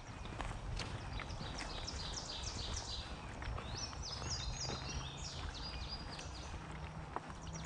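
Songbirds singing: a busy run of many short, high, quick notes, some sliding down in pitch, over a steady low rumble, with a few faint clicks.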